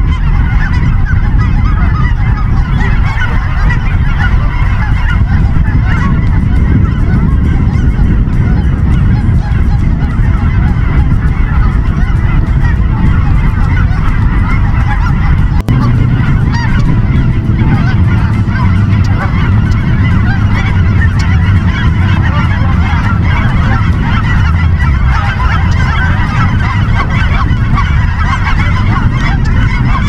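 A large flock of geese honking, many calls overlapping without a break, over a steady low rumble.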